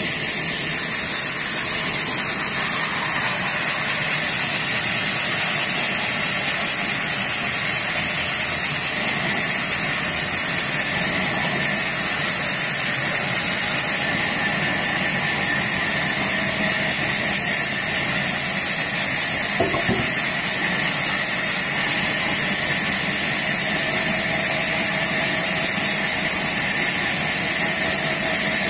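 Sawmill band saw running steadily with a constant high hiss while a log is pushed through its blade.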